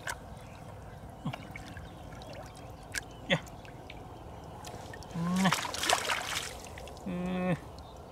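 Hands splashing and groping through shallow muddy floodwater: small drips and splashes, then a louder burst of splashing about five seconds in. A short voiced sound comes twice, about five and seven seconds in.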